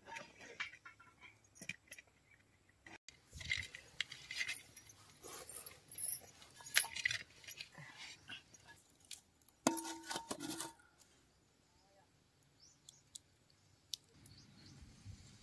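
Irregular metallic clinking and clattering, like metal utensils being handled, with a brief held tone about two-thirds of the way through.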